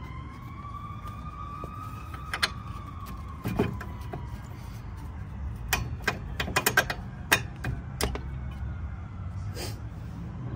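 Sharp metal clinks and knocks as a new front strut is worked into the steering knuckle by hand, most of them packed together about six to eight seconds in. Under them a steady low rumble, and a distant siren that wavers a little in pitch and fades out about four seconds in.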